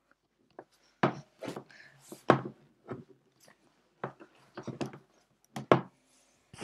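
About ten short, sharp knocks and clicks at irregular intervals, with near quiet between them; the loudest come about a second in, a little after two seconds, and near the end.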